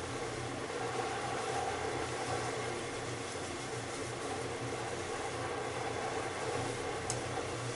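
Sliced pork frying in a pan, a steady sizzle as it is stirred with chopsticks, over a steady low hum, with one light click about seven seconds in.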